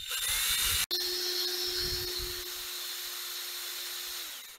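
Cordless drill boring a tap hole into a maple trunk: the motor runs with a steady whine as the bit cuts into the wood, with a brief break about a second in, and stops near the end.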